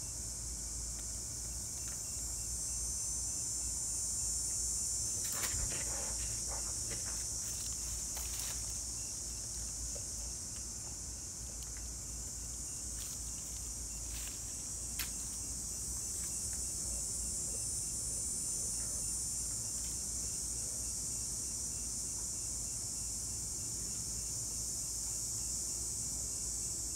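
Steady high-pitched chorus of insects, with a few faint clicks and taps scattered through it.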